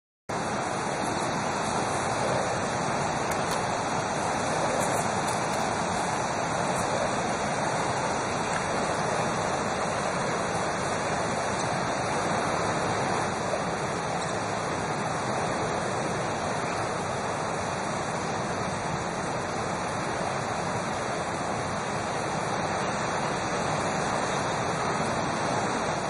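Rushing whitewater of a swift mountain river over boulders, a steady, unbroken roar of rapids.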